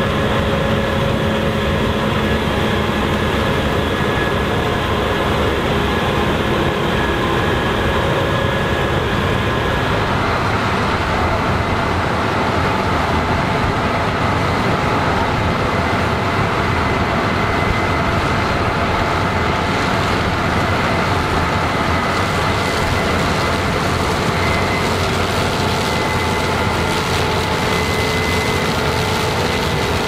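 Combine harvesters working standing corn: the engine and threshing machinery give a steady, loud drone laced with a few steady whines. The sound changes about ten seconds in as the Fendt IDEAL gives way to a Case IH combine.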